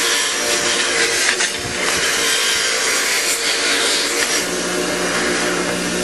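Bench grinder's wire wheel running steadily, scrubbing heavy corrosion off the aluminium base plate of a GM 3.8 V6 ignition coil-pack module held against it.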